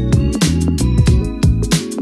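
Background music with a steady electronic beat and a deep bass that slides down in pitch.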